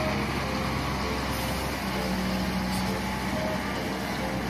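Concrete mixer truck's diesel engine running steadily as the truck moves, a continuous rumble with a steady low hum that strengthens about two seconds in.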